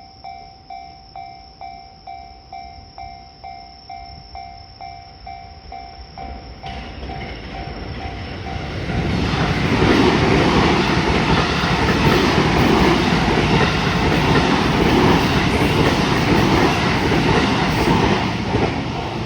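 A Japanese level-crossing warning bell clangs about twice a second, then a train approaches and passes over the crossing, its loud rush and rumble drowning the bell for about ten seconds before easing off near the end.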